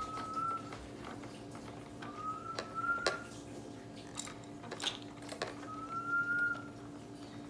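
Plastic toys on a baby activity jumper clicking and rattling as they are grabbed and knocked. A clear whistle-like tone, about a second long and slightly rising, comes back about every three seconds over a steady low hum.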